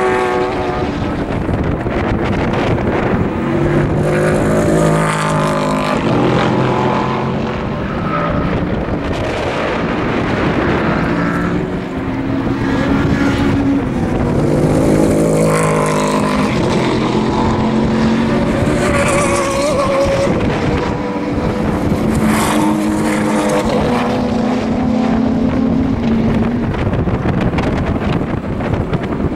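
Racing car engines coming through a corner one car after another, each accelerating out of it with stepwise rises in pitch as it shifts up through the gears, the sound swelling and fading as each car passes.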